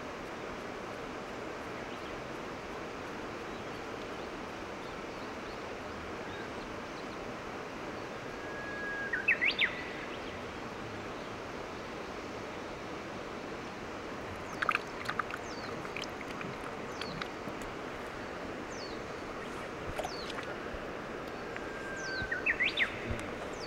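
Songbird calls over a steady outdoor hiss. Twice, a long held whistle ends in a quick rising flourish, and scattered short chirps and falling whistles come in between.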